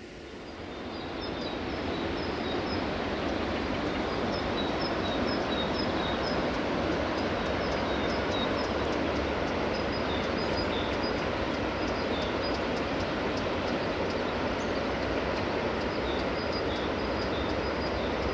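A steady noise that swells over the first two seconds and then holds, with small birds chirping high above it.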